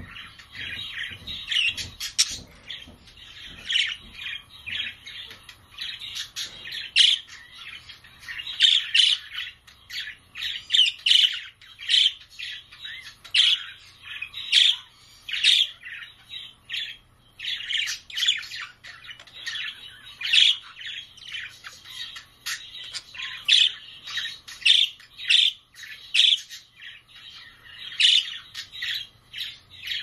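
A group of budgerigars chirping and chattering: many short calls overlapping without a break, with louder sharp calls every second or two.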